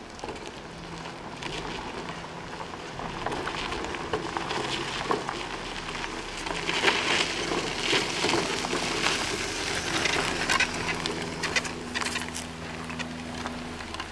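Permobil F3 power wheelchair driving across gravel: tyres crunching and crackling over loose stones, with a steady hum from its electric drive motors, growing louder as it comes closer.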